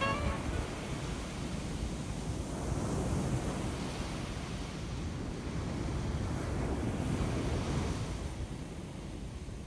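Surf washing onto a beach, with wind rumbling on the microphone; the noise swells gently and eases toward the end.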